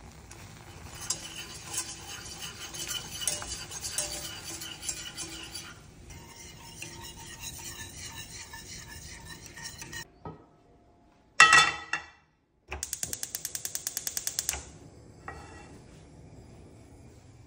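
Wire whisk beating a liquid mixture in a steel saucepan, clicking and scraping against the metal in quick irregular strokes, then more softly. Later a short loud clatter, then about two seconds of rapid, even ticking, about a dozen a second.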